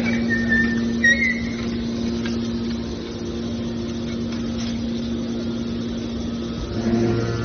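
Scrap metal baling machine's hydraulic power unit running with a steady hum. A brief high metallic squeal sounds about a second in, and a deeper drone joins near the end as the machine takes on load.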